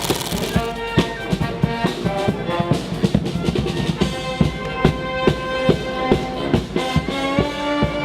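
Brass band playing live: horns hold notes over a steady drum beat, about two strokes a second.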